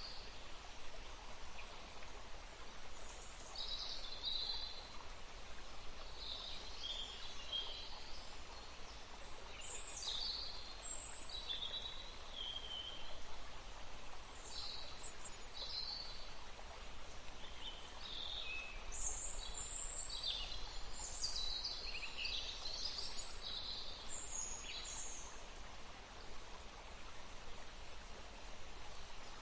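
Many birds chirping and calling, short notes and quick sweeping phrases that come more often in the second half, over a steady hiss of running water.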